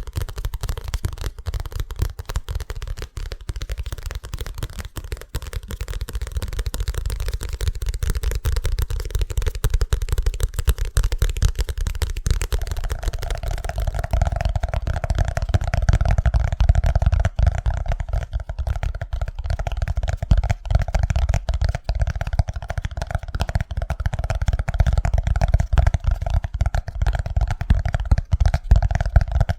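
Very fast, aggressive fingertip and fingernail tapping on objects, a dense stream of clicks. About twelve seconds in it moves to a more resonant object that rings with a steady hum under the taps.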